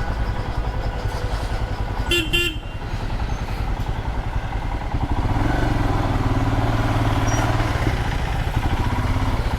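Motorcycle engine running while riding, with a vehicle horn tooting twice in quick succession about two seconds in. The engine gets louder and holds a steady note from about five seconds in.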